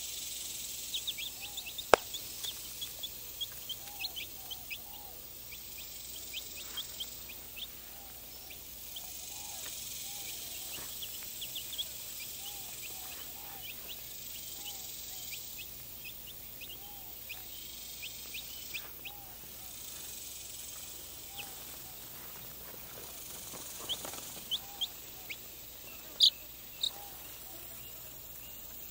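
Young domestic chicks peeping: many short, high cheeps, some in quick runs, over a steady outdoor hiss, with a softer, lower call repeating every second or two.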